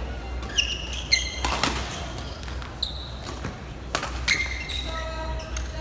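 Badminton rally: several sharp smacks of rackets hitting the shuttlecock, with short high squeaks of court shoes on the mat around the shots, over a steady low hum.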